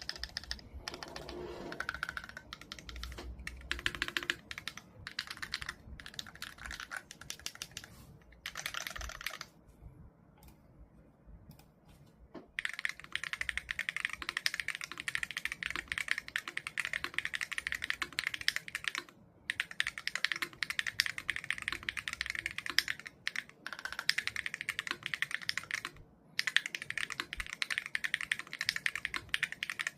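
Clacky typing on a KBDfans Mk3 mechanical keyboard with Akko Astrolink HE magnetic (Hall-effect) switches. Scattered keystrokes at first, then fast continuous typing from about twelve seconds in, broken by two short pauses.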